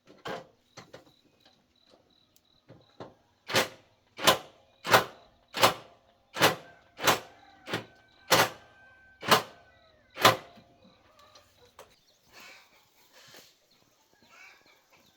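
A run of about ten sharp, evenly spaced hammer blows on metal, each with a brief ring, struck about one every 0.7 seconds, with a few lighter knocks before them.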